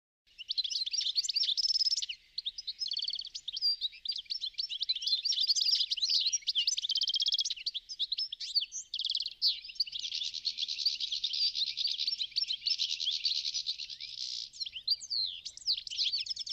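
A songbird singing one long, unbroken song of fast, varied chirps, whistles and rapid trills, starting abruptly.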